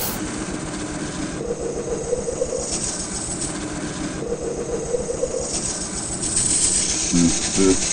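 Mini bike's small gas engine running as it is ridden along a gravel road, with a steady hiss of road and wind noise.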